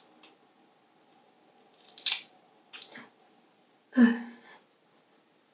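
Scissors snipping through hair: one crisp snip about two seconds in and a lighter one shortly after. About four seconds in comes a short vocal sound from a woman.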